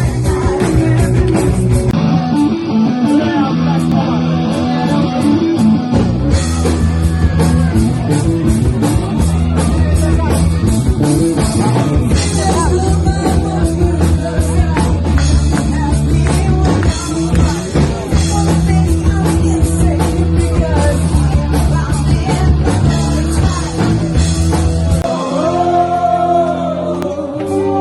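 Live rock band playing: electric guitar, bass and drums with singing, loud and steady.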